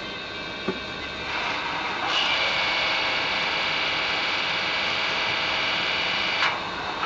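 An N scale Brawa BR232 model diesel locomotive's DCC sound decoder playing its diesel engine sound through the model's small speaker. The sound runs steadily and steps up in level about a second in and again about two seconds in, then holds. A short click sounds near the end.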